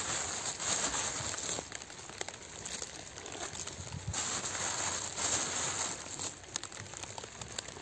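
Rain pattering on plastic grow bags and plant leaves, a steady crackling patter of fine ticks that swells and eases, with crinkling and rustling close to the microphone.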